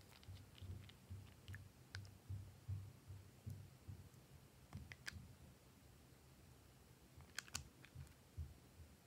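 Faint clicks and taps of small plastic makeup containers and a nail-polish bottle being handled, with soft low handling bumps; a quick pair of sharper clicks comes about seven and a half seconds in.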